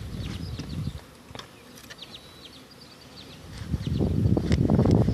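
Honey bees buzzing around an opened hive in a house wall, much louder from about four seconds in.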